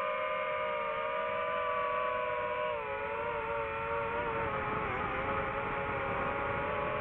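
DJI FPV drone's motors and propellers running with a steady whine. The pitch drops slightly about three seconds in and wavers near five seconds as the throttle changes.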